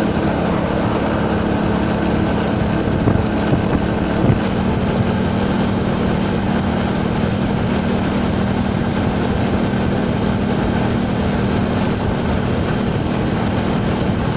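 Motorcycle engine running steadily at highway speed under a heavy rush of wind and road noise; the engine note drops slightly about four seconds in.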